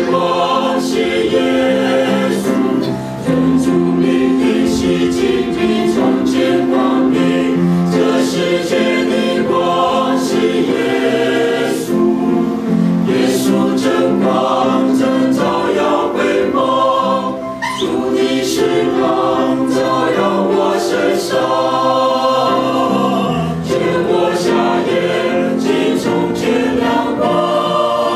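Mixed church choir of men and women singing a hymn, several voices at once in harmony.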